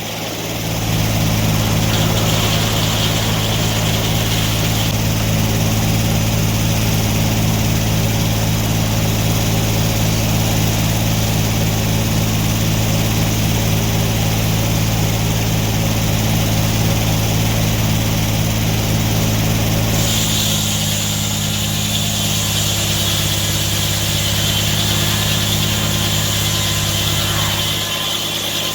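An engine running steadily at a constant speed. About twenty seconds in, its deep hum drops back and a higher hiss comes up.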